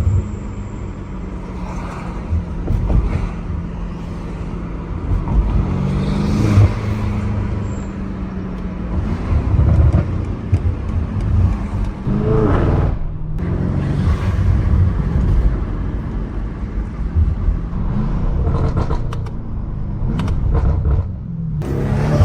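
BMW M8 Competition's twin-turbo V8 running while the car is driven, a steady engine drone with swells in revs. The note climbs about twelve seconds in, then breaks off abruptly.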